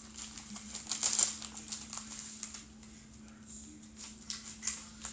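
Hands handling plastic packets and containers of diamond-painting rhinestones: irregular quick clicks, rattles and rustles, loudest about a second in and again near the end, over a faint steady hum.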